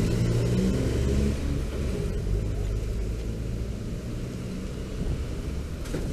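Low, steady rumble of riding through city traffic on an electric scooter: road and traffic noise, with a nearby vehicle's engine hum in the first second or so.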